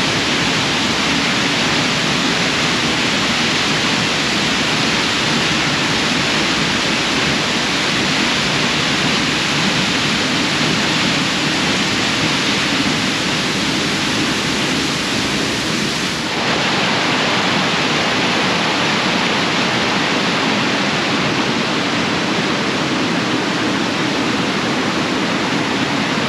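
Thornton Force waterfall: a loud, steady rush of falling water. About two-thirds of the way through, the deep rumble drops away suddenly and the rush carries on.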